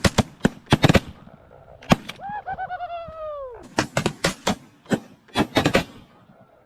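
Goose calling: one long, drawn-out call that falls in pitch near the middle, surrounded by many short, sharp clicking notes in quick runs.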